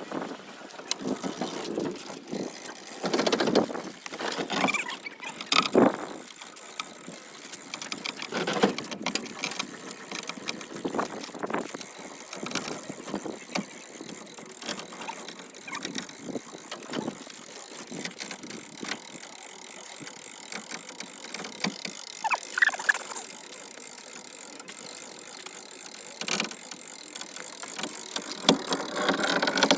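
Irregular metallic clanks, knocks and scrapes of hand work on a car, with a brief squeak about two-thirds of the way through.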